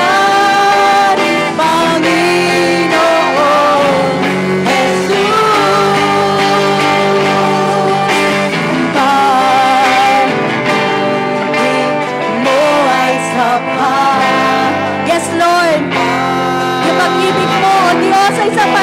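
Worship music: a band playing while voices sing a Tagalog praise song, with sustained instrumental chords under the melody.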